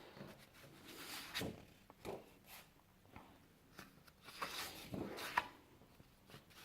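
Sheets of scrapbook paper being handled, with faint rustling and a few soft taps.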